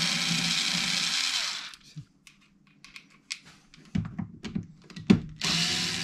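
Cordless electric screwdriver motor running in short bursts, undoing screws in the plastic underside of a Pioneer XDJ-RX: one run of about two seconds at the start, small clicks and taps, then it starts again near the end.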